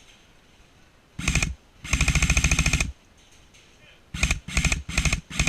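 Electric airsoft rifle (AEG) firing on full auto with rapid, evenly spaced shots: a short burst about a second in, a longer burst of about a second, then four quick short bursts from about four seconds in.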